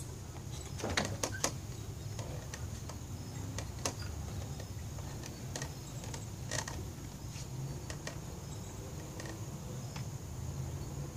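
Scattered light knocks and clicks from a wooden backyard swing set as a climber swings along its overhead bars, a quick cluster about a second in and single ones later, over a steady faint drone of crickets.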